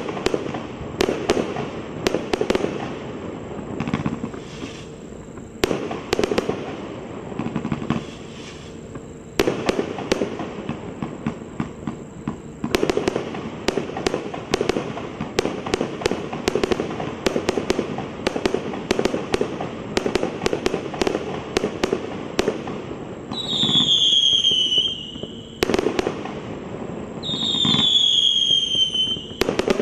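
300-shot fireworks cake firing in quick succession: a dense run of sharp bangs as shots launch and burst, with crackling between them. Near the end, two whistling shots each give a high whistle that slides down in pitch.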